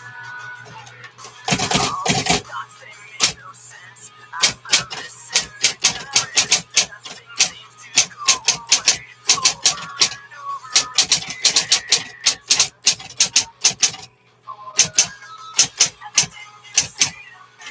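Smith Corona Coronet Electra 12 electric typewriter being typed on fast: a rapid, uneven run of key strikes over the steady hum of its motor, with a brief pause about fourteen seconds in.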